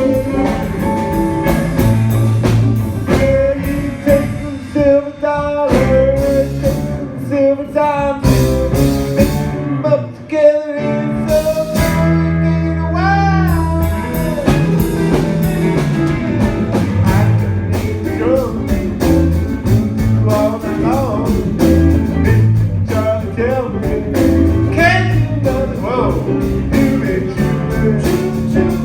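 A band playing a blues-rock song, with guitar and a singer.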